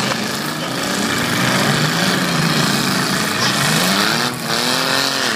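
Demolition derby car engines running and revving, their pitch rising and falling, with one engine revving up sharply about four seconds in.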